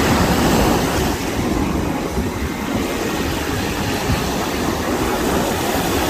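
Ocean surf on a sandy beach: waves breaking and washing up the shore in a steady rushing roar, which swells right at the start.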